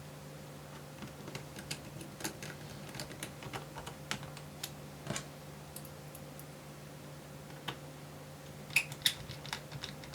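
Screwdriver driving small screws into a laptop's metal hinge: faint, scattered light clicks and ticks, with a small cluster of sharper clicks about nine seconds in.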